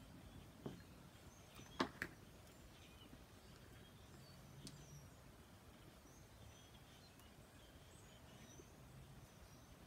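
Near silence broken by a few soft mouth clicks and lip pops from puffing on a tobacco pipe, the loudest a quick pair about two seconds in, with faint high chirps behind them.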